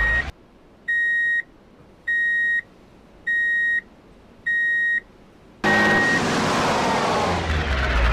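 Reversing-alarm style beeping added as a truck sound effect: four evenly spaced high beeps, about one every 1.2 seconds. About two-thirds of the way in, a loud truck engine sound effect comes back in.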